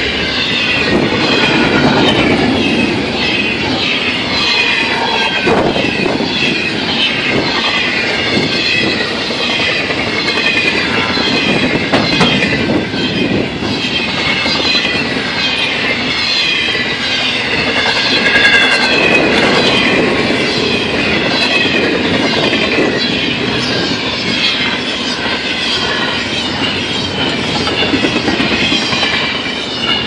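Double-stack intermodal container cars of a freight train rolling past, a steady rumble with wheels clicking over the rails. Wavering high-pitched wheel squeal runs throughout.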